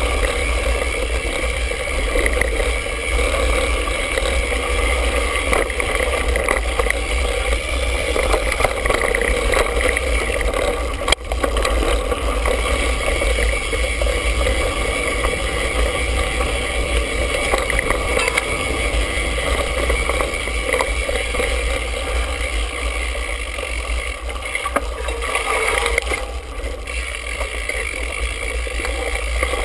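Mountain bike riding dirt singletrack, heard through a handlebar-mounted GoPro: a steady rumble of tyres and bike over the trail with a strong low drone, and one sharp knock about eleven seconds in.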